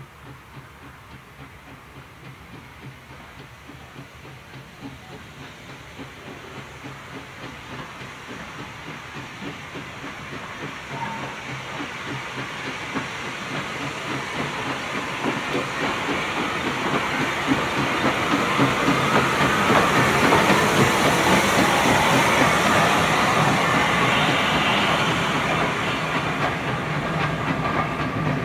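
Furness Railway No. 20, an 1863 Sharp, Stewart 0-4-0 steam locomotive, working a train towards and past. Its rhythmic exhaust beats and steam hiss grow steadily louder and are loudest about three-quarters of the way through as it passes. Near the end the carriage wheels clatter over the rail joints.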